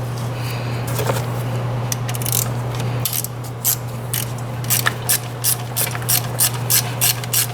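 Quarter-inch ratchet clicking as it backs out a T30 Torx screw holding the thermostat housing to the engine block. After a few scattered knocks of the tool being fitted, it settles from about halfway in into a steady run of about three clicks a second.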